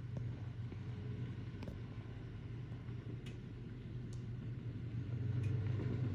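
Off-road vehicle engine running steadily at low revs, a low drone that grows a little louder near the end, with a few faint clicks.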